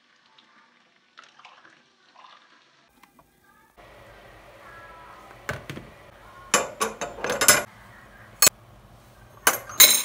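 Faint sounds of hot water poured from an electric kettle into drinking glasses, then black metal gas-stove grates being set into a plastic bowl of water, clanking sharply against each other and the bowl several times in the second half.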